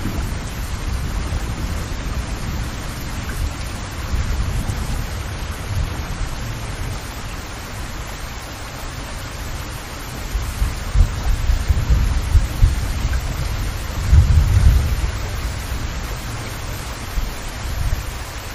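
Steady rain falling, an even hiss, with a low rumble underneath that swells about ten and again about fourteen seconds in.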